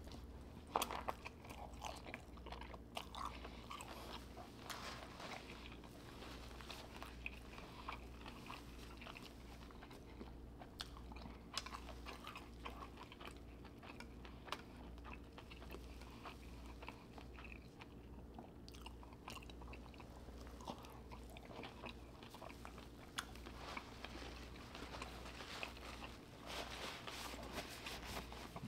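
Close-miked chewing and smacking of sauce-covered seafood, with many irregular wet clicks of the mouth, over a low steady hum.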